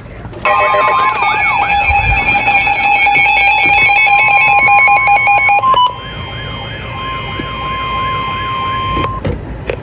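Emergency alert attention tone ahead of a National Weather Service flash flood warning. A loud, steady two-note alarm tone gives way about six seconds in to a quieter single steady tone with a repeating rising-and-falling warble over it, and it cuts off about a second before the end.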